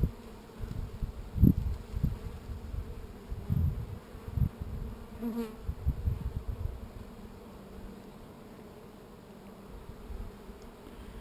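Honeybees buzzing around a hive entrance, a steady hum, with one bee passing close about five seconds in. Irregular low thumps and rumbles, loudest about one and a half seconds in, die away after about seven seconds.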